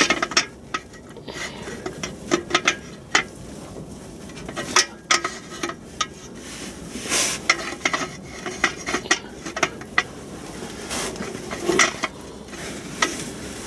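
Clutch disc and steel clutch cover being handled and fitted against the flywheel: irregular light metal clinks, taps and scrapes, with one longer scrape about seven seconds in.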